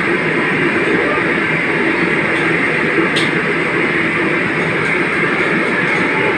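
Steady roar of commercial kitchen equipment, with a sharp metal clink about three seconds in as the ladle works the fried chicken out of the wok.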